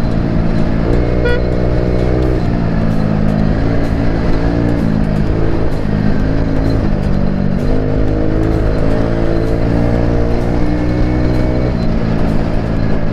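Background music of sustained chords that change every few seconds, over the steady wind rush and engine drone of a scooter cruising at highway speed.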